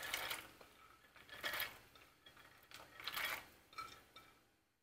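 A metal cooking pot and utensil clattering in about four short bursts, with quiet stretches between, as the pot of boiling salted water with peanuts is handled.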